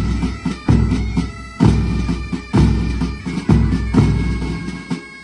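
Bagpipe music with steady drone tones over a regular drum beat, about one beat a second.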